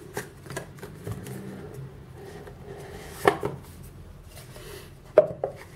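A rigid cardboard box being handled, slid out of its paper sleeve and its lid lifted off. Faint rubbing and light clicks, with a sharper knock about three seconds in and another near the end.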